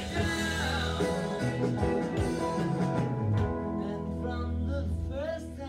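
Rock and roll song with guitar and singing, played back from a vinyl record on a Technics SL-1200MK turntable.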